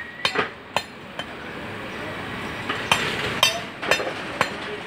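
Butcher's cleaver and knives making irregular sharp knocks and metallic clinks against meat and a wooden chopping block, with a gap of about a second and a half in the middle.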